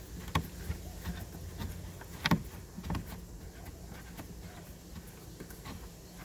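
Scattered light clicks and knocks of hand-held trim parts as the small knob covering the taillight access on a 2011 Dodge Challenger is found and unscrewed by hand; the sharpest click comes about two seconds in.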